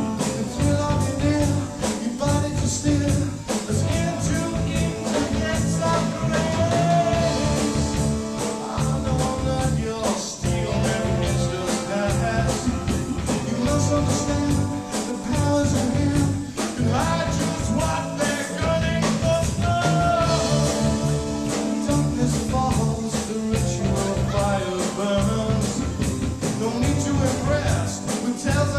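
Rock band playing a song: a voice singing over a steady beat of drums and bass.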